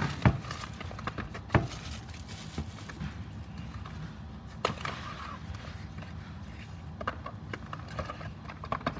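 Cardboard box of a smart charger being handled and opened, and the charger pulled out of its packaging: scattered knocks and clicks with handling rustle, the sharpest knocks near the start and about a second and a half in.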